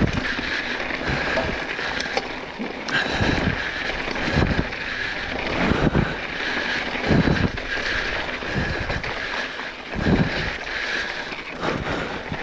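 Wind buffeting the microphone in low gusts about every second, over the rolling rumble and crunch of knobby mountain bike tyres on a rocky dirt trail.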